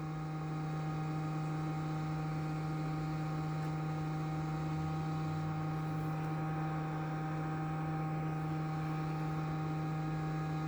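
Steady low electrical hum, one constant tone with fainter steady overtones above it, unchanging throughout.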